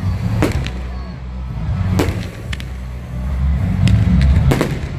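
Aerial firework shells going off: a string of sharp bangs, roughly one every second, over a steady low rumble that grows heavier near the end.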